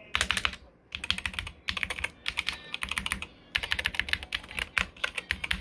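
Mechanical keyboard keys pressed in quick runs: rapid clicking in several bursts separated by short pauses.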